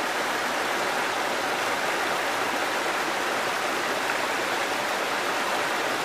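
Rocky stream running over small cascades between boulders: a steady rushing of water.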